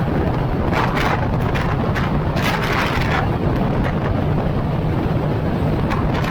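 Wind buffeting the microphone in irregular gusts of hiss over the steady low rumble of a car driving along the road.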